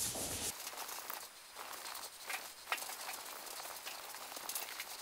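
Faint rubbing and a few light scattered clicks as a gloved hand smears used oil across a painted car panel.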